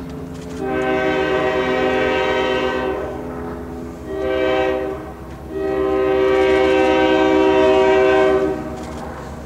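Diesel locomotive's multi-chime air horn, most likely on the approaching EMD GP9, sounding three blasts: a long one, a short one and a final long one. Beneath it a diesel engine idles with a steady low rumble.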